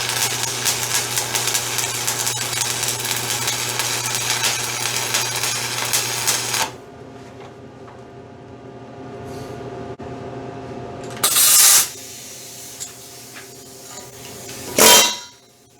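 Pneumatic air hammer chipping stick-welding slag (7018 flux) off a weld, a loud rapid rattle that stops suddenly about six and a half seconds in. Later come two short, loud hissing bursts.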